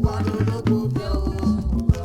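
Nigerian highlife band music playing without singing: a stepping bass line under regular drum strokes and melodic instrumental lines.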